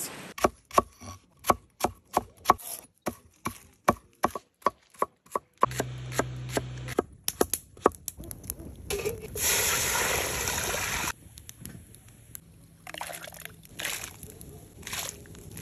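A knife chopping potatoes on a wooden cutting board: a quick run of sharp knocks, about three or four a second. About nine seconds in, a steady rushing noise lasts around two seconds. Near the end, chopped vegetables are dropped into a pot of water with light splashes.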